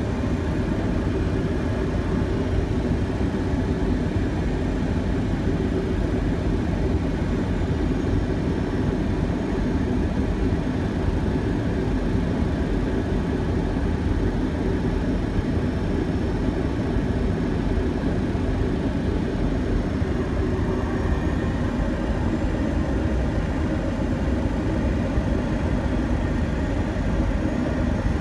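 Steady flight-deck noise of a Boeing 737-700 on final approach: an even rush of air with a low steady hum beneath it.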